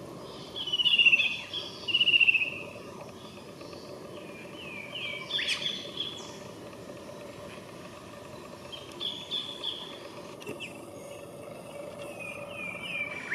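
Bird calls: two loud, rapid chattering calls of falling notes in the first three seconds, then softer short falling calls scattered through the rest. A steady background hum runs underneath.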